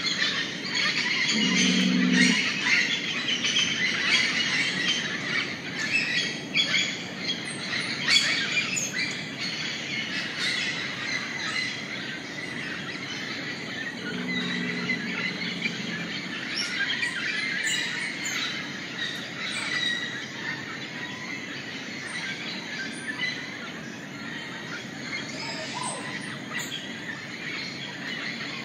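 Rainforest dawn chorus: many birds chirping and calling at once over a steady background din. Two short, low calls stand out, about two seconds in and again about fifteen seconds in.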